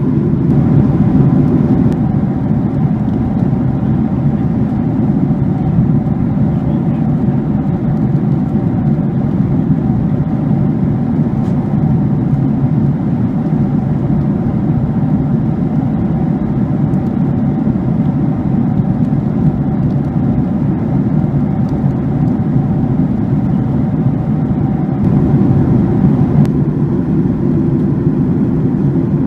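Steady cabin noise of a jet airliner in cruise: a deep, even rush of engine and airflow noise with a faint steady whine above it.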